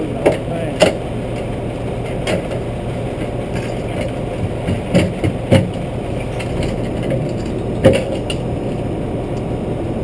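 Steady motor hum from the trout-stocking truck, its engine or tank aerator running, with about half a dozen sharp knocks and clanks as the discharge pipe is handled.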